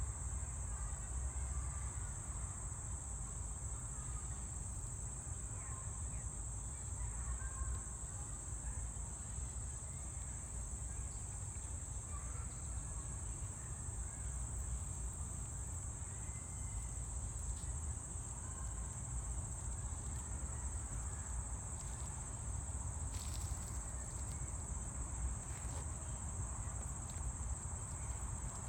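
Insect chorus in summer greenery: a steady, unbroken high-pitched buzz, over a low rumble.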